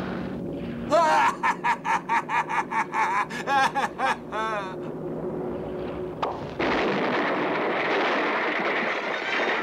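Cartoon character cackling in a quick run of high, wobbling bursts of laughter. A sharp click follows, then a loud steady rushing noise, over background music.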